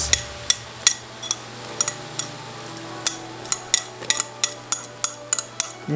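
Cooking utensil clicking and tapping against a pan of simmering sauce as spring onions are stirred in: about twenty quick, irregular taps, coming faster in the second half.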